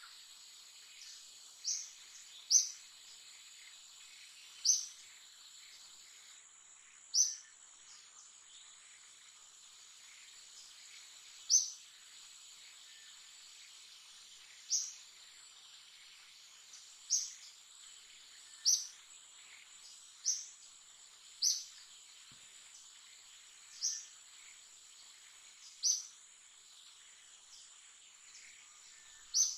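A bird repeating a short, high call that slides downward, about a dozen times at irregular gaps of one to four seconds. Behind it runs a steady high insect hum.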